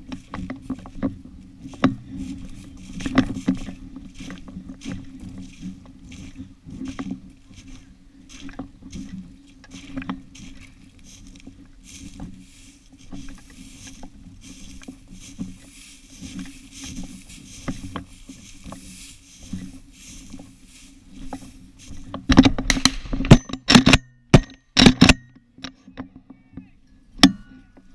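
Footsteps crunching and swishing through dry grass and wet marshy ground, over a steady low hum. About 22 seconds in comes a cluster of several very loud bangs, shotgun fire at a flushed pheasant, and one more bang near the end.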